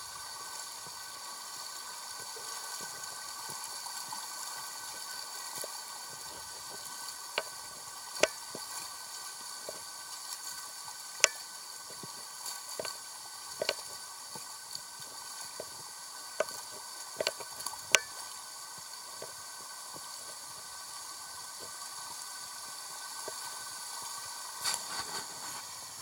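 Steady flowing water of a shallow, rocky mountain stream, with scattered sharp clicks and knocks, the loudest about 8, 11 and 18 seconds in, and a small cluster near the end.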